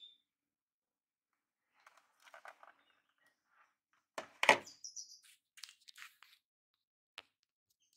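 Handling noise: rustling and light clicks, with one loud knock about four and a half seconds in. There is a short bird chirp at the very start.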